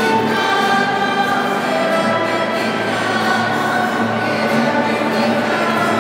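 Children's choir singing slow, held notes, with a violin accompanying.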